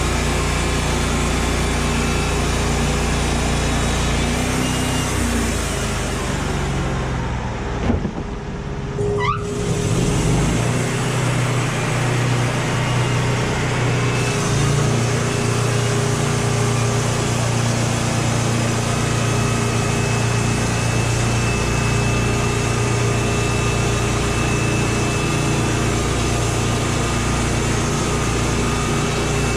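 A machine engine runs steadily, with a brief break about eight to nine seconds in, after which it carries on with a slightly different hum.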